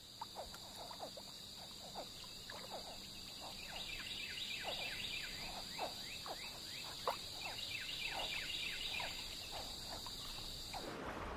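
Swamp ambience: a steady high insect drone under a chorus of short, downward-sliding frog chirps that grows busier after a few seconds. The drone stops just before the end.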